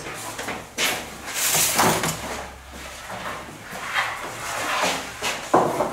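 Metal baking trays scraping and knocking as they are slid into a bakery deck oven with a long wooden peel: a few scraping slides with knocks, the sharpest knock near the end.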